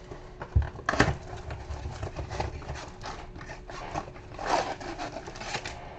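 A cardboard blaster box of baseball cards being opened and handled: scattered taps, scrapes and rustles, with a louder rustle about a second in and another past the middle.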